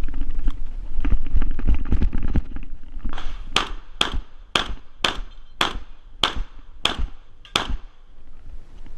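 A shotgun fired in a rapid string of about nine shots, roughly two a second, while shooting an IPSC stage. Before it come about three seconds of low rumble with scattered knocks.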